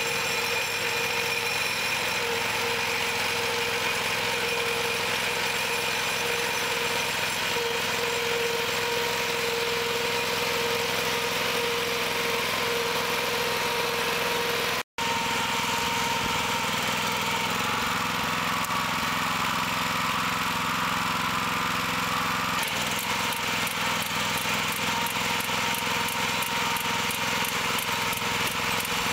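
Small engine of a two-wheel walking tractor running steadily under load, driving a CAEB mini round baler that draws up hay and winds it into a roll. There is a brief break about halfway. Near the end a rapid, regular ticking joins the engine as the finished bale is wound with netting.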